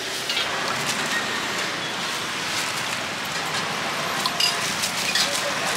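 Busy outdoor market ambience: a steady background hiss of traffic and crowd noise, with scattered light clinks and rustles as a steel ladle works among metal bowls and plastic bags.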